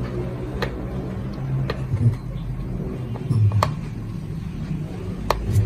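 A steady low rumble, with a few light clicks as metal multimeter probe tips touch the legs of a power transistor.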